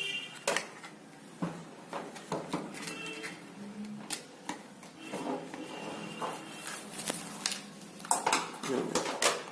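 Scattered sharp clicks and knocks of a hot glue gun and its stand being handled, hard plastic and metal tapping and clattering, with a quick cluster near the end.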